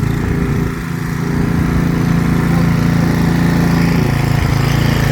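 A small gasoline engine running steadily at an even speed.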